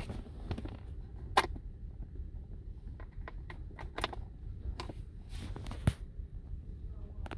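Scattered sharp clicks and taps from handling a diagnostic scan tool and its connections, the loudest about a second and a half in and again near six seconds, over a low steady rumble.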